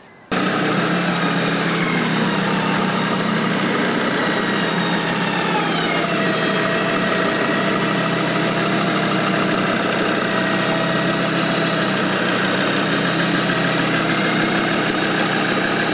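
A Land Rover Defender being winched up a steep slope, with its engine running steadily. Over it an electric winch motor whines under load, dipping slightly in pitch about five seconds in. The sound starts suddenly just after the start.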